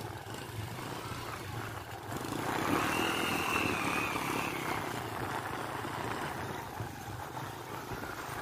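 Small motorcycle engines running as the bikes ride along a dirt track. The sound swells about two seconds in and eases off a few seconds later.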